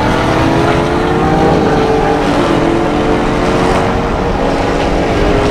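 Car engine running steadily at freeway speed with tyre and road noise, heard from inside the cabin; the engine's drone holds nearly level, sagging slightly in pitch.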